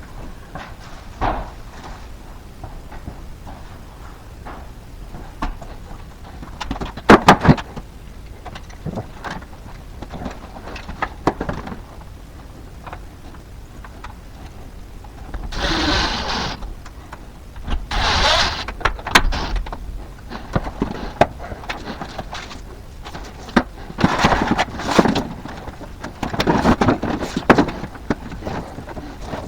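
Hands-on electrical work with conduit and cable: a few sharp knocks, a cluster of them about seven seconds in, then several bursts of scraping and rustling lasting a second or two each.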